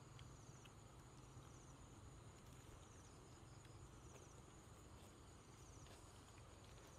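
Faint insect chorus: a steady high buzz with short pulsed trills repeating about once a second, over a low background hum.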